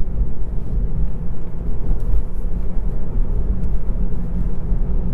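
Steady low road and tyre rumble inside a moving Tesla Model 3's cabin, with no engine sound from the electric car.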